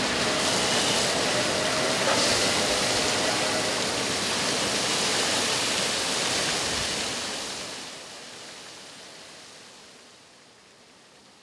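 Maquina sculpture fountain's water splashing and falling steadily, fading away over the last few seconds to a faint hiss.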